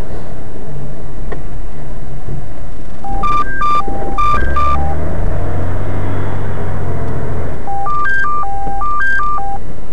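An electronic beeping tune of short single-pitch notes stepping between a few pitches, played twice, about 5 s apart. Under it is the steady low rumble of the car's engine and road noise.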